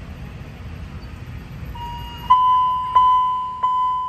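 Railway level-crossing warning bell ringing from the crossing signal's loudspeaker as the crossing activates for an approaching train. It starts faintly about two seconds in and then gives three clear dings, each dying away, about one and a half a second. A low traffic rumble lies under the start.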